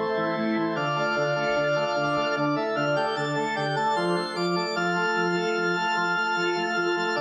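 Background music: held chords over a bass figure that repeats in even steps, with no singing.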